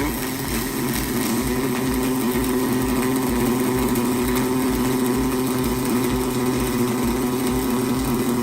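Robotic arc welding on hot-dip galvanized steel: a loud, steady arc buzz with a hum in it that starts abruptly and holds evenly.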